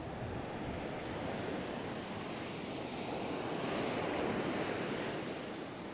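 Ocean surf breaking and washing up a sandy beach: a steady wash that swells louder around four seconds in as a wave runs up the shore.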